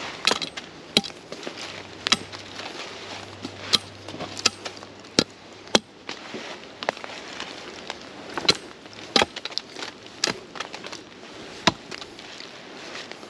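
Irregular sharp snaps and cracks of twigs and sticks being broken, about a dozen, with dry leaf litter rustling between them.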